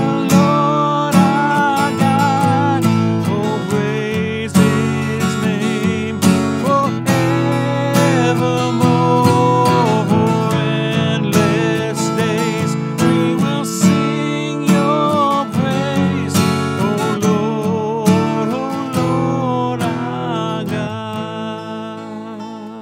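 Acoustic guitar strummed in a slow hymn accompaniment, with a wavering melody line held over the chords, getting quieter toward the end.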